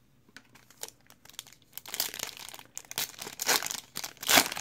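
A sealed basketball card pack's wrapper being crinkled and torn open by hand. The crackling is sparse at first, then turns into dense bursts of crinkling, with the loudest tear near the end.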